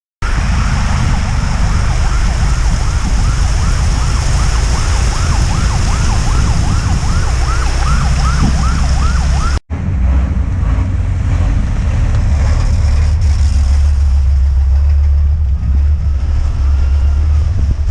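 Siren wailing in fast up-and-down sweeps, about three a second, over a heavy low rumble. The siren stops at a cut about ten seconds in, leaving only the rumble.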